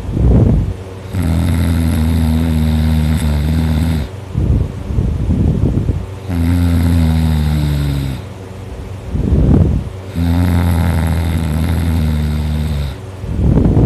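A sleeping teenager snoring very loudly in a steady breathing cycle: three long snores, each about three seconds with a slightly falling pitch, with short noisy breaths between them.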